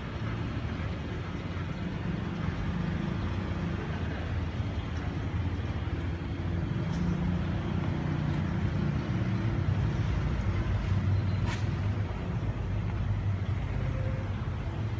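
Steady low road-traffic noise from passing vehicles, a little louder past the middle, with one brief sharp high tick about eleven and a half seconds in.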